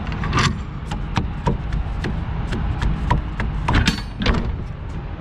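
Rear swing door of a semi trailer being unlatched and opened: the lock-rod handle and cam latches clank and knock about a dozen times, with a quick cluster of clanks about four seconds in, over a steady low rumble.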